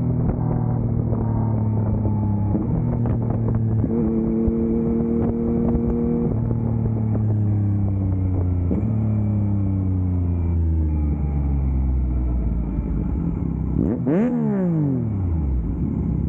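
Motorcycle engine under way: its pitch steps up about four seconds in, then winds down gradually as the bike slows. About fourteen seconds in, a quick throttle blip sends the revs sharply up and straight back down.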